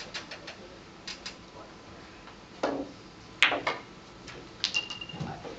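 Billiard balls clacking: faint clicks at first, then two louder knocks about two and a half and three and a half seconds in, and a quick run of clicks near the end.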